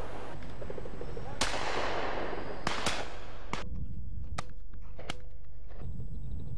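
Shotgun shots at pheasants: about six sharp reports. The first, about a second and a half in, is the loudest and dies away slowly. A quick pair follows, then three more spaced further apart.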